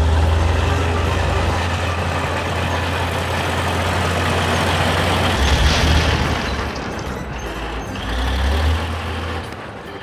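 Cartoon sound effect of a heavy excavator engine rumbling, with a louder crash of rock cracking and blocks tumbling about halfway through.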